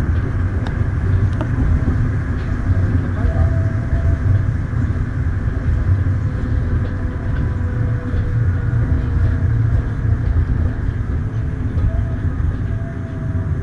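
Daegu Metro Line 3 straddle-beam monorail train, heard from inside the car, pulling away and running along the elevated guideway. Its rubber-tyred running gear gives a steady low rumble, and faint motor whines drift slightly in pitch above it.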